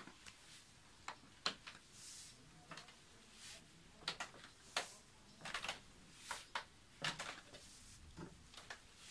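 Faint, irregular footsteps, knocks and scuffs on a wooden staircase as someone climbs it, a dozen or so short sounds with gaps between.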